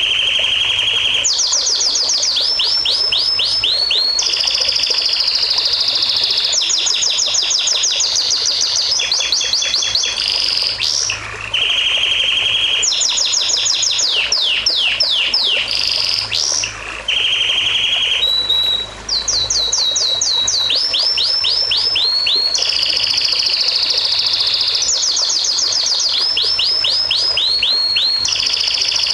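A songbird singing a long, varied song: fast runs of repeated down-slurred notes alternating with held whistles, breaking off briefly a few times, over a steady rush of running water.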